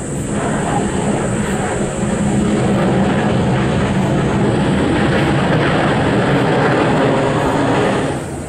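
Airbus A380-841 jet noise from its four Rolls-Royce Trent 970 turbofans as the airliner rolls out along the runway after touchdown: a loud, steady rush that comes up suddenly at the start and drops away sharply about eight seconds in.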